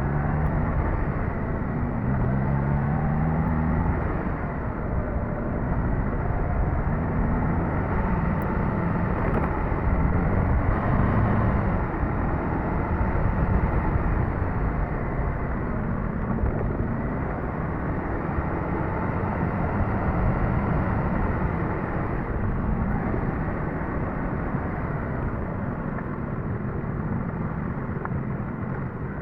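Suzuki GSX-S1000GT's inline-four engine running while the bike is ridden, its pitch rising and falling now and then, over a steady low rush of wind and road noise.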